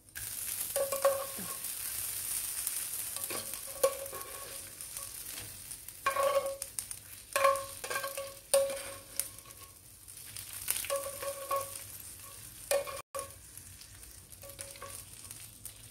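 Hot fried anchovies and their frying oil sizzling on contact with fresh ground chili sambal in a wooden mortar. Irregular short pops and crackles run through the sizzle, which starts loud and slowly dies down.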